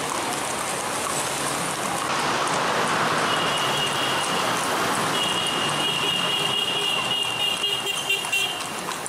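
Steady outdoor street noise, with a high, steady whistle-like tone sounding twice: first for about a second and a half, then for about three seconds.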